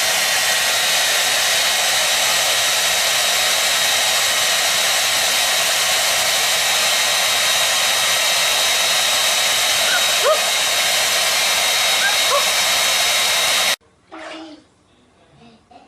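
Steady, loud rushing noise of an electric blower such as a hair dryer, with two faint, short rising squeaks late on. It cuts off suddenly a couple of seconds before the end.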